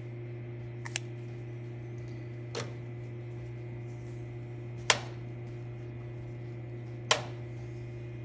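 Handling noise: four short, sharp clicks and taps, the loudest about five and seven seconds in, over a steady low hum.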